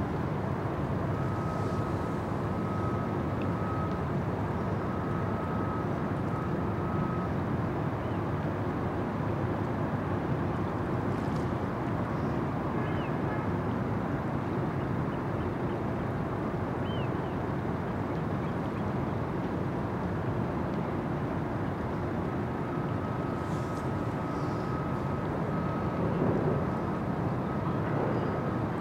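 Steady low rumble of the cruise ship Oriana's machinery as she manoeuvres, carried across the harbour water. A faint high steady tone comes in for a few seconds near the start and again near the end.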